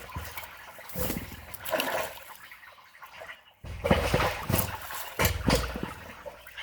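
Water splashing and gurgling in several loud bursts as a beaver-debris clog of sticks and rocks is pulled apart in a culvert pipe to get water flowing through.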